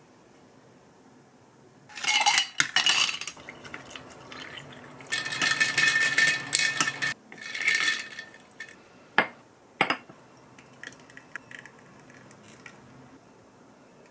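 Ice cubes and glassware clinking and rattling as an iced lemon tea is made in a tall glass, in three loud bouts, followed by two sharp knocks about a second apart and a few faint clicks.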